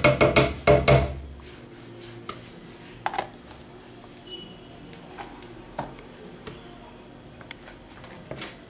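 A spoon scooping ice cream from a tub and knocking it off into a blender jar: a quick run of taps and scrapes in the first second, then a few scattered light clicks.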